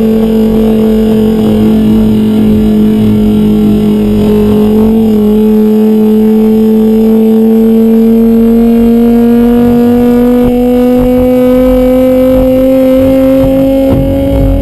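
Sport-bike engine running at steady high revs, its pitch slowly rising as it gathers speed.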